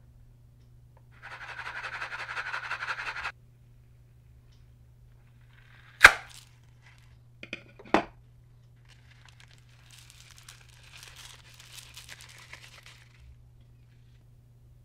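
A pink balloon stress ball shaken, then cut or popped open over a bowl of clear slime: a rapid rattling lasting about two seconds, one loud sharp snap, two smaller clicks a couple of seconds later, then a soft crackly pattering as its sprinkle filling falls onto the slime.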